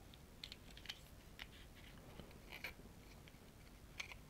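Quiet, with a few faint, scattered clicks and taps of small objects being handled on a desk.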